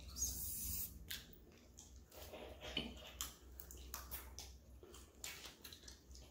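Eating sounds at a crab boil: crab shells cracking and snapping open, with chewing, heard as scattered sharp clicks and crackles.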